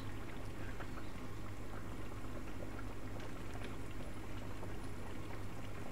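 A pan of chicken and pickled bamboo shoot curry bubbling steadily on the stove, with many small pops and gurgles, over a low steady hum.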